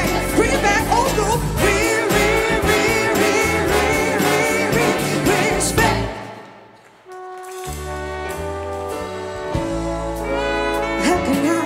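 Live soul music: a female lead singer singing with wide vibrato over a brass-heavy band and gospel choir. The music breaks off about six seconds in for about a second, then the band comes back in with held chords and the singing returns near the end.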